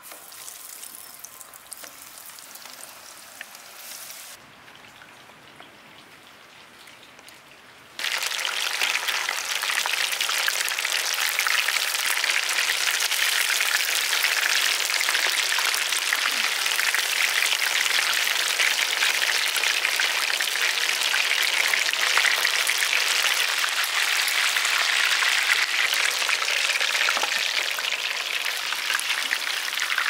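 Breadcrumb-coated fish fingers deep-frying in hot oil in a large iron kadai: a dense, steady crackling sizzle. It is faint for the first several seconds, then jumps suddenly to full loudness about eight seconds in and stays there.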